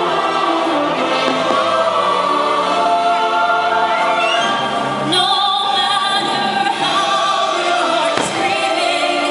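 Choir singing over orchestral music. A couple of sharp fireworks bangs come through about five and eight seconds in.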